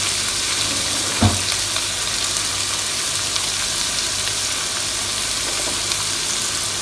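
Chopped onions, ginger, garlic and curry leaves sizzling steadily in hot sesame oil in a non-stick pan, with a single short knock about a second in.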